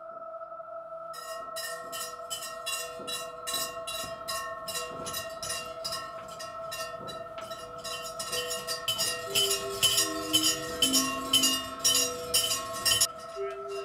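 Ambient film music: a steady drone with regular ringing, bell-like strikes that enter about a second in and grow denser and louder in the second half. Near the end, a few low notes step slowly downward.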